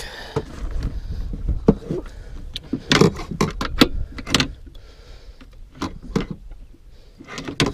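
Rubber-mesh landing net, with a big northern pike inside, knocking and rattling against the boat deck as it is handled: a string of sharp knocks and clatters, busiest about three to four and a half seconds in.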